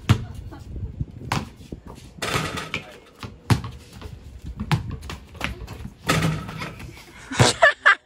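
Basketballs bouncing on a concrete court and being shot at the hoop: several sharp thuds at irregular intervals, with a short voice near the end.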